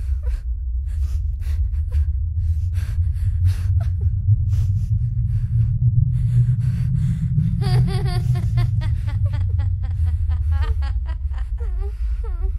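A steady low rumble with scattered clicks and rustles, then from about eight seconds in a person's wavering, pitched non-speech vocal sounds, like gasping or whimpering.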